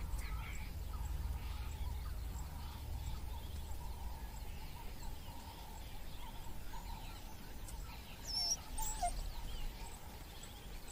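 Outdoor wildlife ambience: scattered short, high chirping calls, a few louder gliding ones about eight seconds in, over a low rumble that fades out about halfway.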